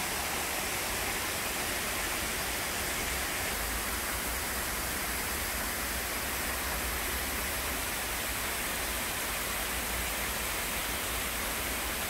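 Artificial waterfall, several streams pouring down a rock face into a pond: a steady, moderately loud rush of falling water.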